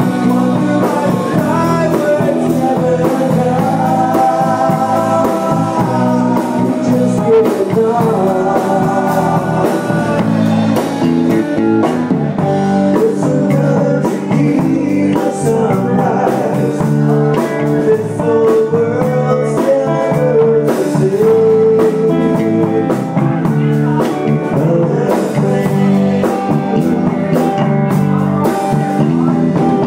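Live band playing a blues-rock number: electric guitar leading over a drum kit.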